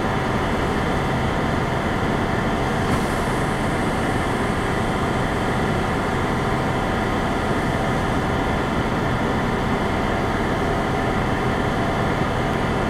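Fire engine's motor running steadily while parked, heard from inside the cab as an even, unchanging drone.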